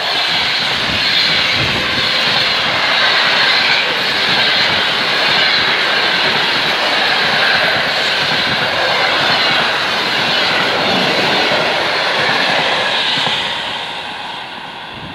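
Passenger coaches of a train rushing past on the rails, with a loud steady rush and rumble of wheels on track. It fades from about thirteen seconds in as the last coach draws away.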